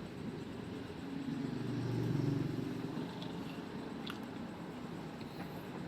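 Quiet background with a low hum that swells and fades about two seconds in, and a faint click about four seconds in.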